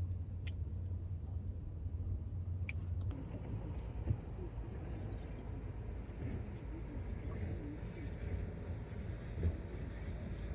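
Fishing boat's engine running steadily at low revs, with a steady hum that eases after about three seconds. There are a couple of sharp clicks early on and two short knocks later.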